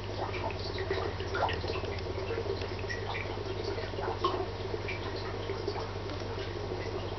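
Aquarium water trickling and dripping, with many small scattered ticks and pops over a steady low hum.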